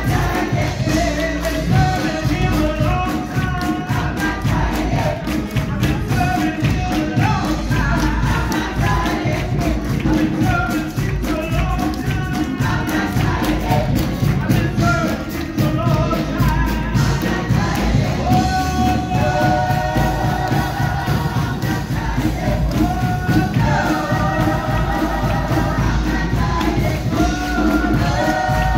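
Gospel choir singing a processional hymn in harmony over instrumental accompaniment with a steady beat and heavy bass.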